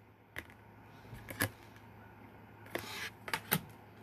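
Tarot cards being handled and set down on a tabletop: a few light taps and clicks, with a short rustling brush of cards near three seconds in, over a faint steady hum.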